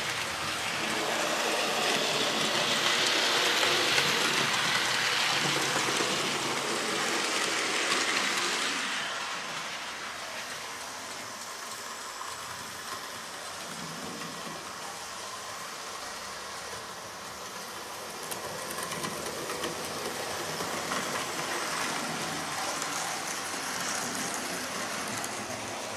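Hornby OO-gauge Hogwarts Express model locomotive (5972 Olton Hall) with its coaches running on the layout track: a steady running noise of the electric motor and wheels on the rails. It is louder for the first nine seconds or so, then quieter.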